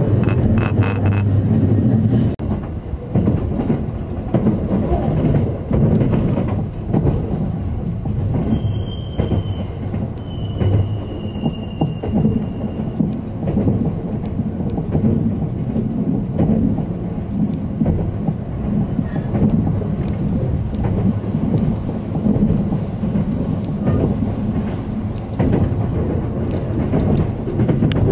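Steady low rumble of an express train running, heard inside the passenger car, with irregular knocks of the wheels over the track. A faint high squeal comes twice, about nine and eleven seconds in.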